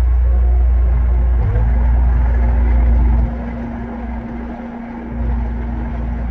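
Skid steer engine running as the machine drives off over gravel, working a Harley rake attachment. It makes a deep, steady rumble that drops sharply about halfway through as it pulls away, with a steady hum underneath.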